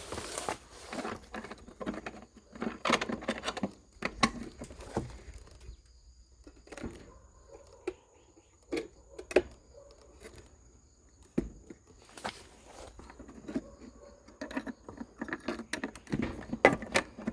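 Irregular taps, clicks and short rustles of a person moving about and handling things, with a faint steady high tone underneath.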